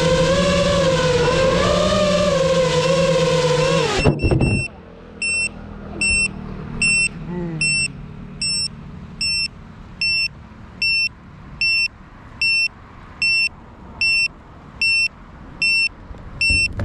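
FPV quadcopter's motors whining with a slightly wavering pitch, then cutting off abruptly about four seconds in as the drone comes down and its motors stop. After that a beeper on the drone sounds a short, high beep a little more than once a second.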